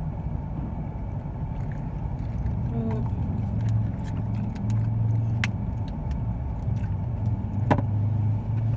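Car engine idling, a steady low hum heard from inside the cabin, with two sharp clicks, one about five and a half seconds in and one near the end.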